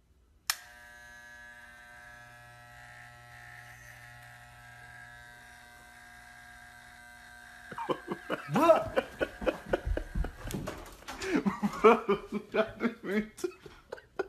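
Electric hair clippers switched on with a click about half a second in, then buzzing steadily. At about eight seconds the buzz stops and loud voice sounds take over, louder than the clippers.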